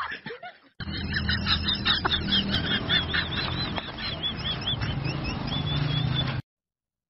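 A rapid series of high, arching chirps, several a second, from a small animal, over a low hum. The chirps cut off suddenly near the end.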